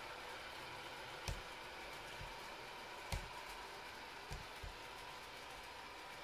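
Quiet steady room hiss with about five soft knocks and taps from handling at a wooden workbench while glue is brushed onto carved styrofoam. The loudest knock comes about three seconds in.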